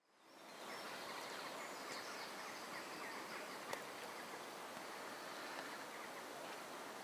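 Outdoor ambience fading in from silence: a steady faint hiss with bird calls chirping through it, and one sharp click a little under four seconds in.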